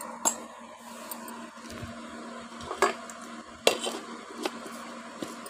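A few sharp clinks of a spoon against a glass bowl while spices are being added, the loudest about three and a half seconds in, over a steady low hum.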